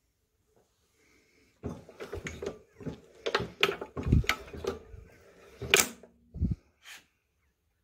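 Nelson Brothers hit-and-miss engine turned over by hand at the flywheel: an irregular run of metallic clicks, snaps and knocks from its mechanism. It starts about one and a half seconds in and stops about seven seconds in.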